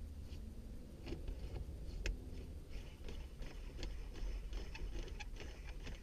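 Brushed-aluminium Raceseng Slammer shift knob being screwed by hand onto a Toyota 86 shift lever: a run of light, irregular ticks and clicks, with one sharper click about two seconds in.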